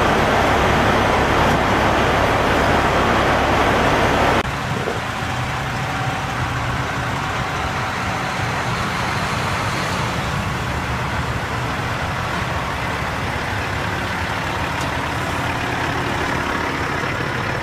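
Diesel semi-trucks idling at the pumps, a steady low engine rumble. For the first four seconds a louder rushing noise covers it, then cuts off suddenly.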